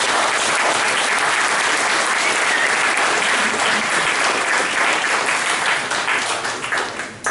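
Audience applauding, dense steady clapping that tapers off near the end.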